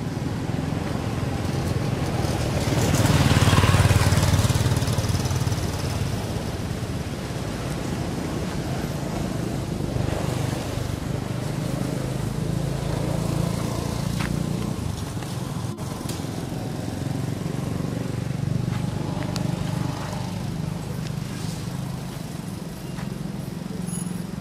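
Motor engine noise from passing traffic, a steady low hum, with one vehicle swelling loudest about three to four seconds in and then fading.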